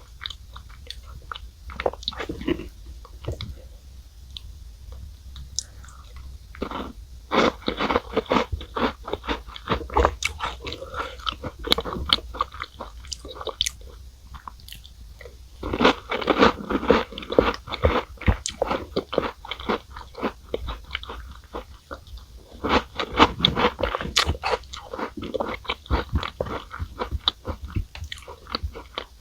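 A person chewing and crunching Chic Choc chocolate cookies eaten with milk. Three louder bouts of crisp crunching are separated by quieter chewing.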